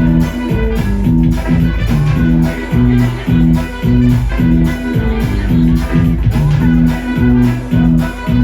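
Loud electronic dance music from a live set, driven by a bass line of short, repeating notes on a steady beat.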